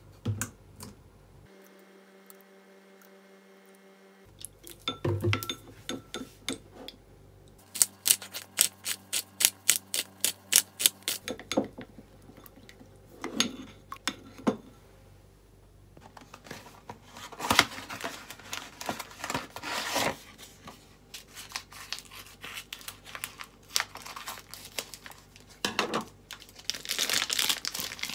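Kitchen work sounds: scattered clatter of dishes and utensils, a run of about a dozen quick, evenly spaced knocks around the middle, and packaging crinkling near the end.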